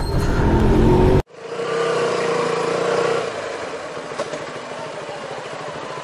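Loud motorcycle road and engine noise that cuts off suddenly about a second in. Then a motorcycle engine runs at low speed through city traffic, its note dropping away about two seconds later.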